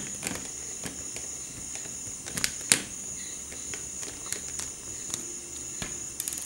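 Small screwdriver working screws out of a Redmi 2 phone's plastic back housing: scattered light clicks and taps, the sharpest about two and a half seconds in. A steady high-pitched whine runs underneath throughout.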